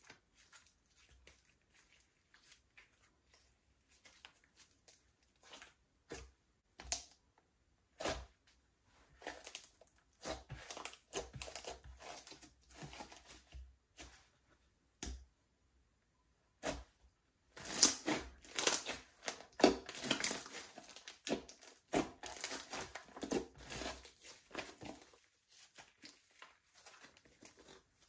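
Hands squishing and stretching slime, giving irregular sticky crackles and small pops, sparse at first and busiest in the second half.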